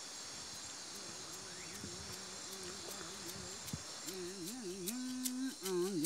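Steady chirring of night insects, with a man's voice humming a slow, wavering chant that is faint at first and grows louder from about four seconds in. Near the end a dry shaken rattle joins in.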